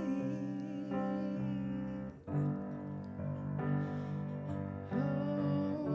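Live piano accompaniment playing sustained chords, with a sung note held with vibrato at the start and the voice coming back in near the end.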